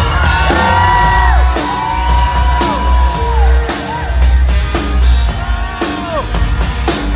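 A saxophone playing a solo live with a rock band. It holds long high notes that slide down at their ends, over the band's drums and bass.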